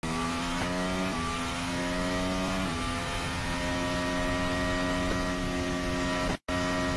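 Mercedes Formula One car's 1.6-litre turbocharged V6 hybrid engine running at high revs, heard through the onboard camera. Its pitch holds mostly steady, with a few small shifts in the first three seconds, and the sound cuts out for an instant near the end.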